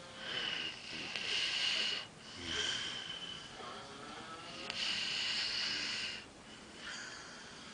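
A drunk man snoring heavily: two long, hissy breaths with a whistling wheeze, each followed by a shorter breath.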